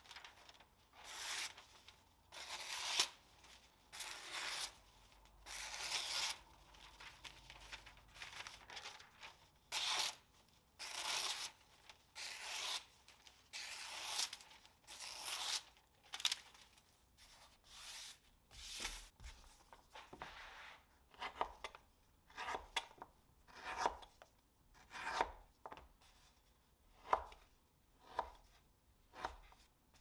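Rhythmic hand strokes of an abrasive rubbing back and forth on the knife, each stroke a short scraping rasp. The strokes are longer and slower in the first half, then shorter, sharper and quicker later on.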